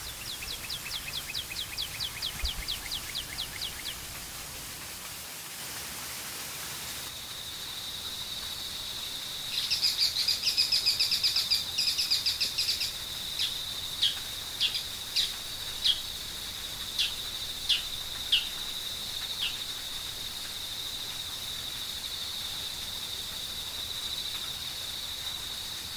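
Forest birds and insects calling: a quick series of high chirps for the first few seconds, then a steady high-pitched insect buzz that starts about seven seconds in. A rapid run of loud chirps joins it at about ten seconds and thins out to single chirps spaced about half a second apart.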